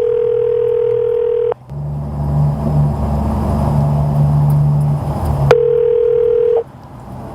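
Telephone ringback tone heard down a pay phone line: one ring of about two seconds, a pause of about four seconds, then a second ring cut short after about a second as the call is answered. A low engine rumble fills the pause between the rings.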